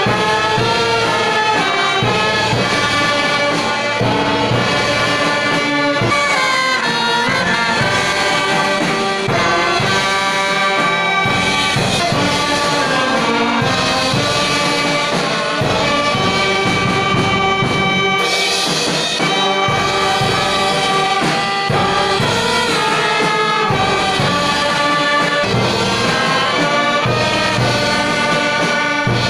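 Brass band music: trumpets and trombones playing a melody of held notes over a steady beat.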